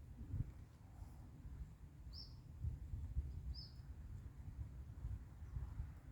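Two short, high bird chirps about a second and a half apart, over a faint low rumble.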